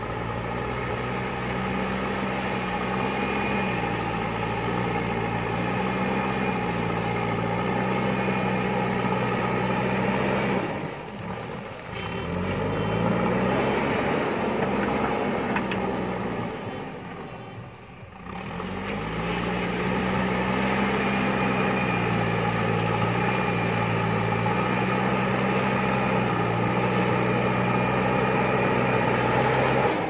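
JCB backhoe loader's diesel engine running under load as the front bucket pushes soil. Its note is steady except twice, about a third and two-thirds of the way in, when the revs drop off and then climb back up.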